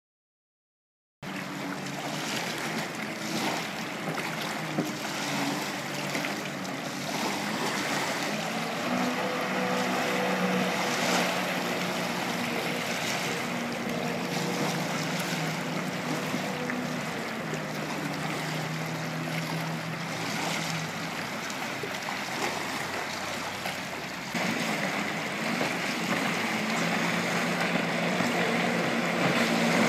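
Jet ski engines running out on the river: a steady drone over a rushing noise. The sound starts about a second in and gets louder about three-quarters of the way through.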